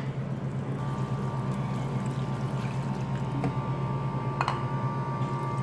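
Water poured from a bowl into a pan of chickpeas cooking in tomato masala, splashing and filling over a steady low hum. There is a light knock about four seconds in.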